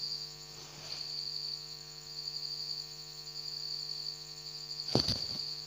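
Steady high chirring of insects over a low electrical hum, with a single knock about five seconds in.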